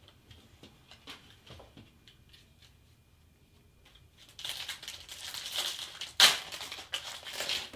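A trading-card pack's wrapper being crinkled and torn open, starting about halfway through, with one sharp rip near the end. Before that, a few faint clicks of cards being handled.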